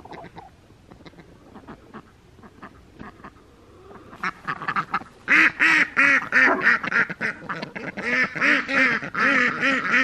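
A flock of ducks quacking in a loud, rapid, overlapping chorus, starting about four seconds in after a quieter opening.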